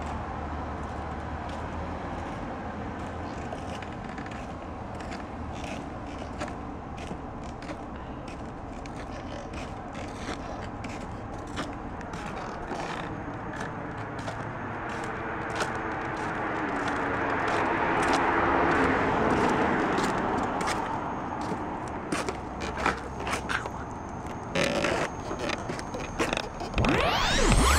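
Street ambience with a car driving past, its sound swelling and fading over several seconds, over a steady hum of traffic, with many light clicks and scrapes throughout. Music cuts in right at the end.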